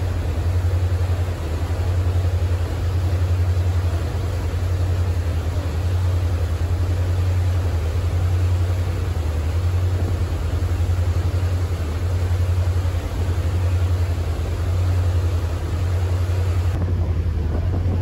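Ferry's engines droning low and steady under the rush of the churning propeller wake.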